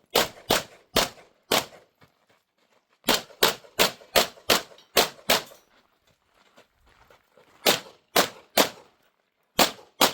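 Pistol shots fired in quick strings during a timed course of fire: about four shots, a short pause, a fast run of about eight, another pause, three more, then two near the end.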